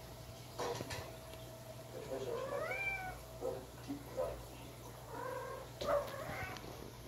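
Persian chinchilla cat meowing in short rising-then-falling calls, a few about two and a half seconds in and more around five seconds. A sharp thump near six seconds as the cat jumps down from the cat tower to the floor.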